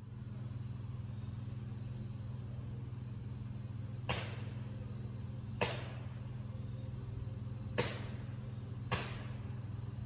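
Outdoor ambience of insects, likely crickets, trilling steadily and high over a steady low hum, broken by four sharp clicks a second or two apart.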